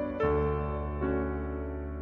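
Background music of slow, sustained notes. A new chord comes in just after the start and another about a second in, each ringing on.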